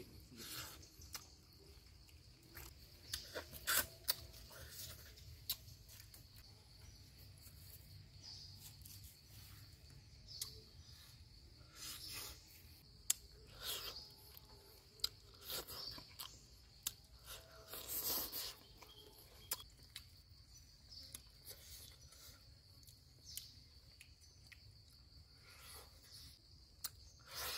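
A person chewing and biting into cooked fish, with irregular wet mouth clicks and small crunches. Insects buzz steadily and high-pitched underneath.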